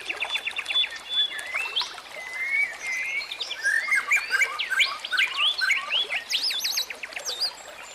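Birds chirping and trilling, several overlapping calls of quick whistles and rapid trills, busiest in the second half.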